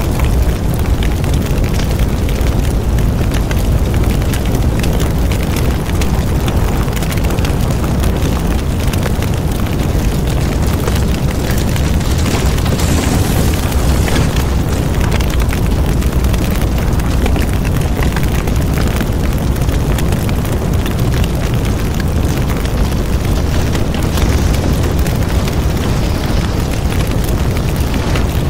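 Market kiosks burning in a large fire: a loud, steady low roar with continuous crackling.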